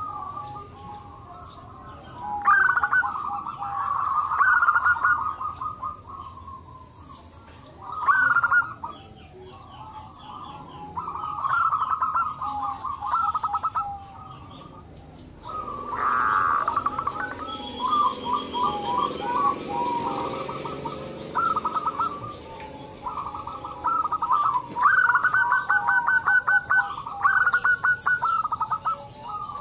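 Several zebra doves cooing, their rapid staccato coos coming in bouts that overlap and answer one another, with short pauses between bouts.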